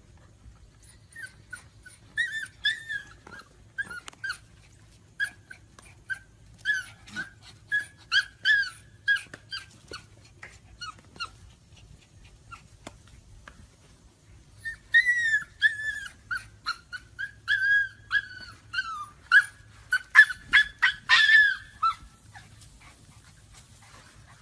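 Siberian husky puppies whining and yipping in quick, short, high-pitched calls. The calls come in two long runs with a lull of a few seconds between them, and the second run grows louder near its end.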